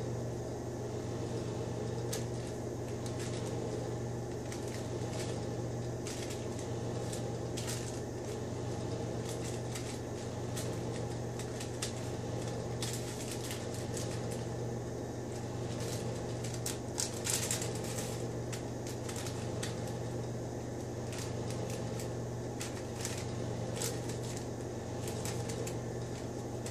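Parchment paper crinkling and rustling in short crackles as its edges are folded over and pressed down to seal a papillote, with a slightly louder crackle about two-thirds of the way in. A steady low hum runs underneath.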